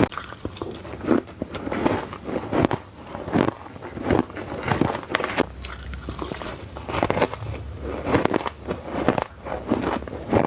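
A person biting into soft, crunchy ice close to the microphone, a quick irregular series of crunches with a brief lull midway.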